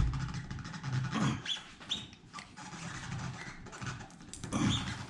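A man grunting and breathing hard, with scraping and rubbing, as he forces a tire plug on its insertion tool into the puncture in the tread. There is a thump at the start and two louder strained grunts, about a second in and near the end.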